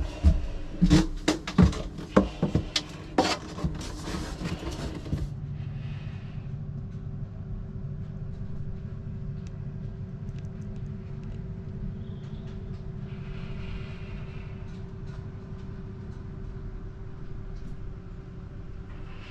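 A quick run of sharp knocks and clatters for about five seconds, then a steady low hum with a faint steady tone.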